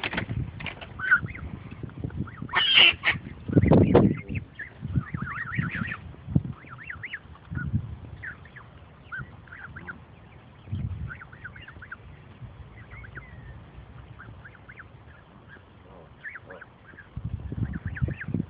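Canada goose goslings peeping in short, repeated high calls, with one louder goose call about three seconds in. Bursts of low rumble come and go, the strongest about four seconds in.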